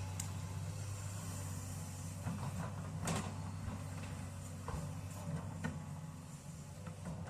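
Sany excavator's diesel engine running steadily, with a few sharp metallic clanks and knocks from the working machine, the loudest about three seconds in.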